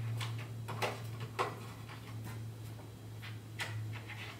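Faint, irregular ticks and clicks of a hand screwdriver turning a screw out of the clutch end piece of a honeycomb window shade, about six over a few seconds, over a steady low hum.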